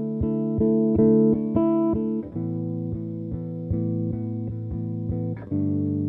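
Electric bass guitar played solo through effects: sustained, layered chord-like tones over a steady pulse of short plucked notes, the harmony shifting about two seconds in and again near the end.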